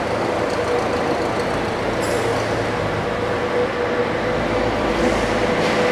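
Steady machinery noise of a factory hall: an even mechanical din with a constant whine running through it, the low rumble growing a little near the end.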